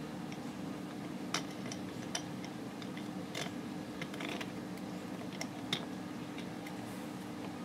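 Scattered light clicks and taps of small frame parts and hardware being handled during assembly, irregular and a second or so apart, over a steady low hum.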